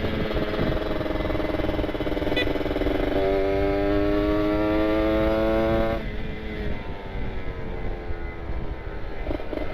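Kawasaki Ninja RR 150's two-stroke single-cylinder engine through an R9 carbon aftermarket exhaust, accelerating hard with the revs rising. About six seconds in the throttle closes, and the note drops and falls away as the bike slows.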